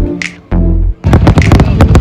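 Music with a heavy bass for the first second, broken by two short drops in level, then from about a second in fireworks crackling and popping in quick succession over the music.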